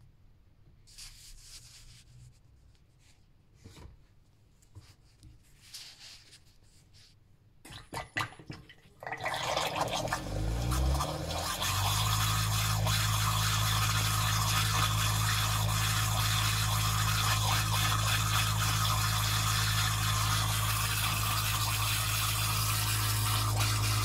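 Neff dishwasher's pump motor starting up about nine seconds in, its hum rising in pitch for a couple of seconds and then running steadily, with water churning in the sump around the spinning impeller. The pump starts by itself about every minute while the machine's tap light flashes and it will not run a wash, a fault that began after a kitchen flood.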